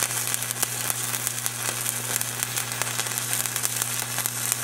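Stick-welding arc from a 7018 electrode running a cap pass on a steel test plate: a steady crackling sizzle full of fine pops, over a low steady hum.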